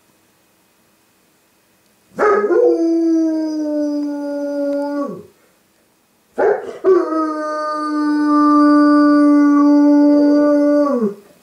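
Dog howling: two long howls, the first about three seconds and the second about five. Each holds a nearly steady pitch and drops away at the end.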